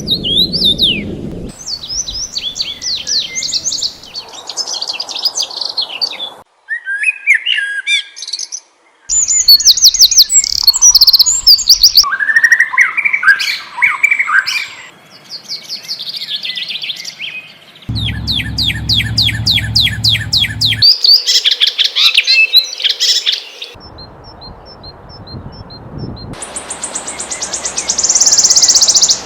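Songbirds singing and chirping: a run of different trills, sweeping whistles and rapid chirps. It comes as short recordings spliced together, the background changing abruptly every few seconds, with a low rumble under one segment about two-thirds of the way through.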